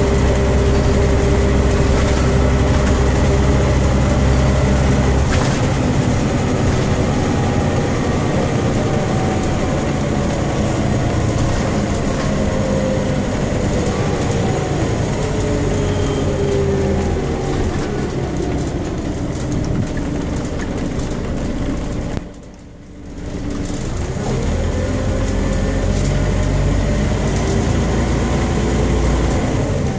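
Inside a Scania OmniCity city bus under way: the Scania DC9 Euro 2 diesel engine and ZF 4HP 502 automatic gearbox running, with a steady low hum and whining tones. The whine falls slowly as the bus slows down. The sound briefly drops away a little past the twenty-second mark, then the whine rises again as the bus speeds up.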